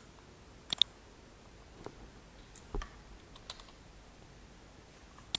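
A few sharp computer mouse and keyboard clicks, spaced out over a quiet background, with a quick double click about a second in and another at the end.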